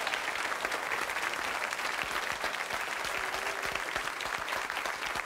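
Studio audience applauding steadily: a dense patter of many hands clapping.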